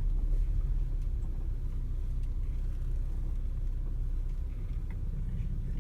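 A car running, a steady low rumble of engine and road noise.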